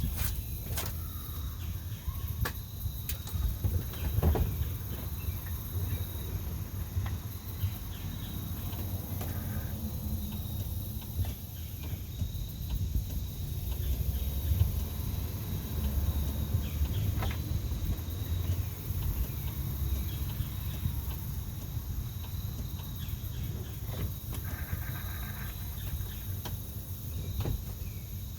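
Low, steady background rumble with a few faint scattered clicks and knocks. No cranking is heard: the 240SX's starter does not turn the engine over, which the owner later traces to a fried starter.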